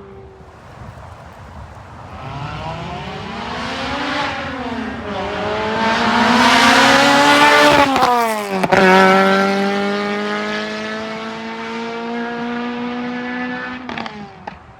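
Lotus Elise's 2ZZ-GE four-cylinder engine breathing through a high-flow catalytic converter and Sonic Fury muffler, accelerating hard. The revs climb, ease briefly, then climb again to a peak. They drop sharply at a gear change about halfway through, then pull steadily upward in the next gear.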